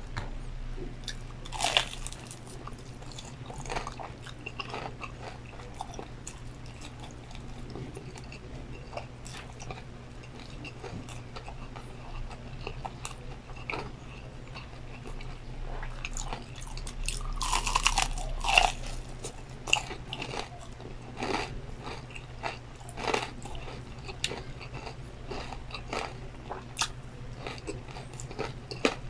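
Close-miked crunching bites and chewing of crispy fried chicken coating, in scattered short crackles with a louder run of crunching about two-thirds of the way through. A steady low hum runs underneath.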